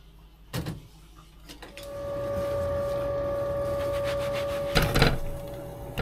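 Washing up at a kitchen sink: a knock about half a second in, then a steady hiss with a faint whine for about three seconds, ending in a short clatter of dishes near the end.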